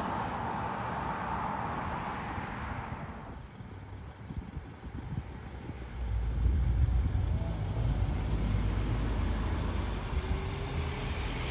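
Cars driving past on a street, with wind rumbling on the microphone from about six seconds in.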